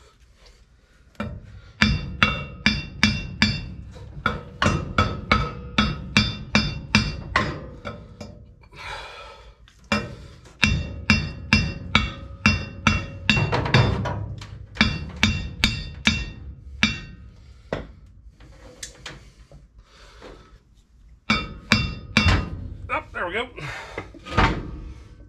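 Hammer blows on a stuck rear brake drum of a 1986 GMC Sierra 3500 dually, in three fast runs of about three strikes a second, each strike ringing metallically. The drum is held on by a wear ridge inside it catching on the brake shoes, and is being knocked loose.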